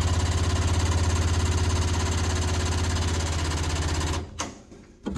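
A machine runs steadily with a deep hum and a rapid rattle, then stops about four seconds in.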